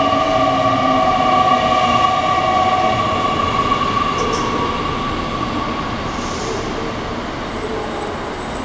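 JR Kyushu 885 series electric train rolling slowly along a platform and braking to a stop. A steady high squeal from its brakes and wheels fades out over the last few seconds as it halts.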